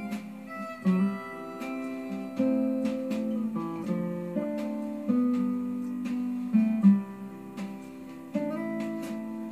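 Instrumental music led by acoustic guitar: strummed chords and plucked notes, with no singing.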